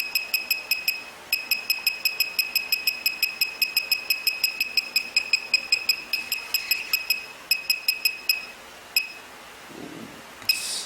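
Laser projection keyboard beeping with each keystroke: a fast run of short, identical high beeps, about five a second, with two brief pauses, as a typing mistake is corrected. One more beep follows, then a short louder noise near the end.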